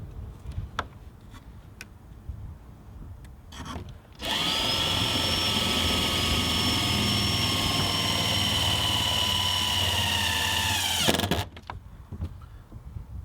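A power drill runs steadily for about seven seconds, then winds down and stops. A few light clicks and knocks come before it.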